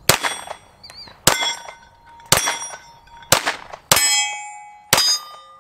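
Lone Wolf Arms LTD19 9mm pistol firing six shots of Hornady Critical Defense, about a second apart. Each shot is followed by the ring of a struck steel target.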